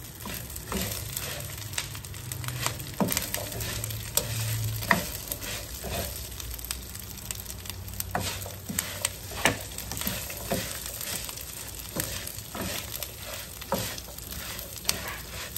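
Whole akabare chillies and whole spices sizzling in hot oil in a nonstick wok, stirred with a wooden spoon that knocks and scrapes against the pan about once or twice a second.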